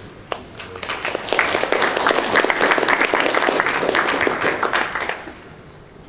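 Audience applauding: a few scattered claps at first, swelling to full applause about a second in, then dying away about five seconds in.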